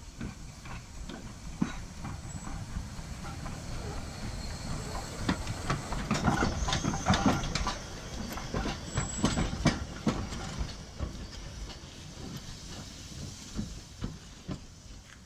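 1916 Hudswell Clarke saddle-tank steam locomotive moving slowly past at close range. Its wheels click and knock irregularly over rail joints and pointwork, over a hiss of steam. The sound is loudest in the middle as it passes and dies down as it draws away.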